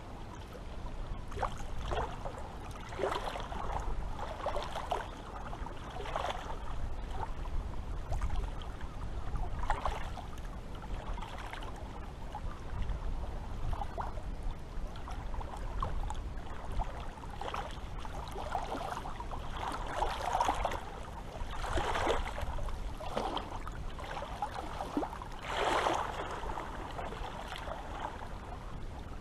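Seawater lapping and splashing in small, irregular surges, one every second or two, over a steady low rumble.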